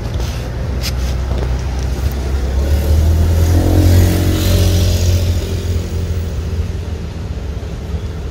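A motor vehicle passing: a low engine rumble that swells to a peak about halfway through and then fades.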